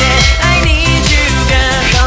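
Background pop music with a steady electronic dance beat.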